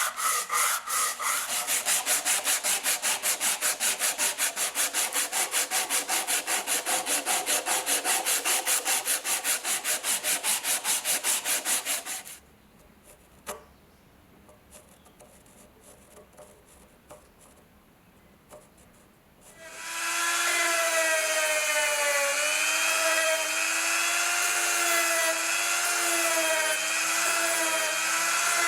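Fast, even back-and-forth rasping strokes of a hand tool working metal or wood, about six strokes a second, which stop about twelve seconds in. After a quiet pause with a few light clicks, an electric power tool starts whining steadily, its pitch wavering slightly as it works.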